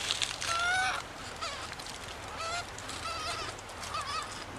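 Infant long-tailed macaque crying: a string of high, wavering whimpering calls, one longer call about half a second in followed by several shorter, quavering ones, crying for attention.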